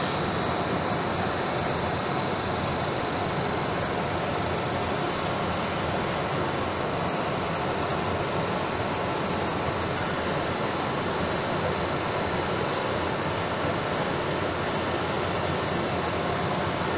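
Trenord double-deck electric train moving slowly along the platform, a steady rumble of wheels and running gear.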